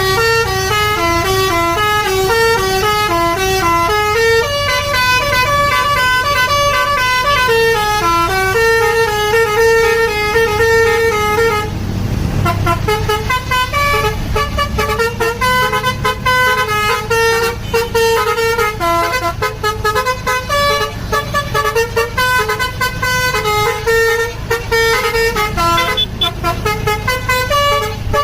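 A bus's telolet basuri musical horn playing a quick stepping melody of horn notes. It breaks off briefly about twelve seconds in, then carries on over a steady low rumble.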